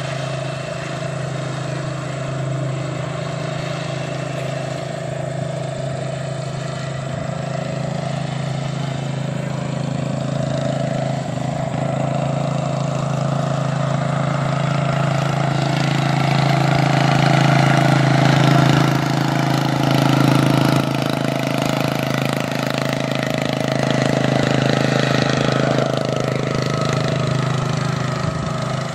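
Racing lawn tractor's engine running steadily on a dirt track. It grows louder past the middle and is loudest about two-thirds in, then eases off.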